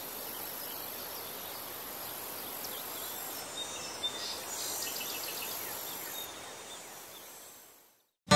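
Outdoor summer ambience: a steady background hiss with a few short bird chirps and a thin, high, steady insect-like tone. It fades out about a second before the end.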